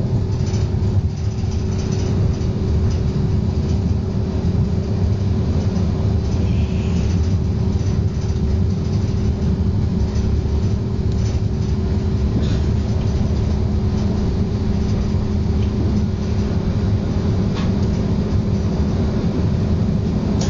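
Rail passenger car running, heard from inside the car: a steady low rumble with a steady hum under it.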